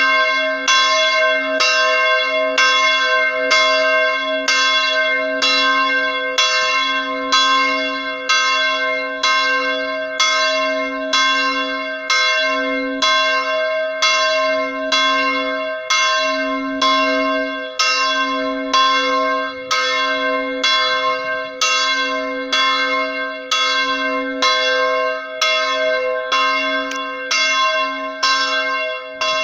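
Swinging church bells ringing to call the faithful to Mass, struck about once a second, each stroke ringing on into the next so the tones overlap in a continuous peal.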